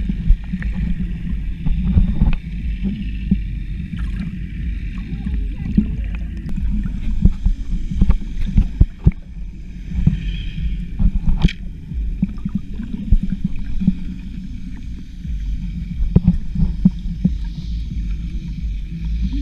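Muffled underwater sound: a steady low rumble of moving water with scattered clicks and knocks as a snorkeler digs by hand in the sandy bottom.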